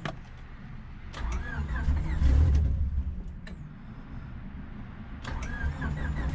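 Starter cranking the turbocharged Honda Civic's D16 four-cylinder engine on its first start attempt, turning it over without it catching. There are two cranking spells: one starting about a second in, which is the loudest, and another near the end, after a click of the key at the very start.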